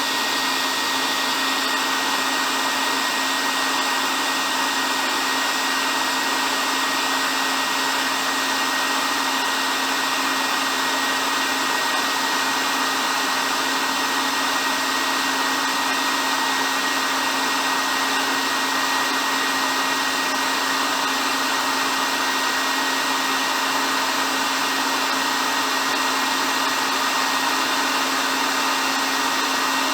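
Hair dryer running steadily: an even blowing hiss with a low motor hum and a thin high whine that never change.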